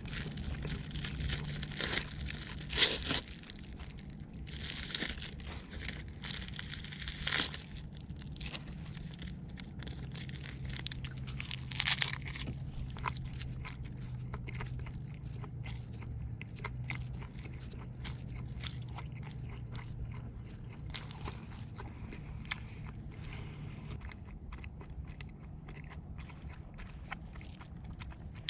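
Plastic film of a packaged onigiri crinkling as it is unwrapped, in loud bursts over the first several seconds, then biting and chewing of the nori-wrapped rice ball, with crunches of the crisp seaweed.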